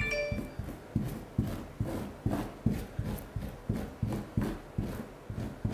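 Gloved hand rubbing tile grout into a mosaic of small tiles, in repeated strokes about two and a half a second. A brief ringing tone right at the start.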